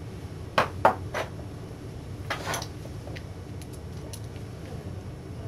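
Small metal screws clinking and clicking as they are picked up and handled to be put back into an LCD monitor's chassis. Three sharp clicks come in the first second and a half and two more clinks about two and a half seconds in, followed by a few faint ticks.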